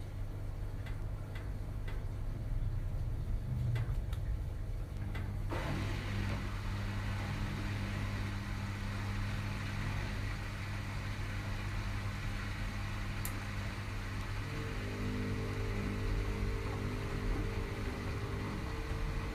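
Washing machine on a spin-only cycle. After a low hum and a few faint clicks, the drum motor starts about five seconds in with a sudden rush of noise and a steady whine, and a higher whine joins later as the spin picks up.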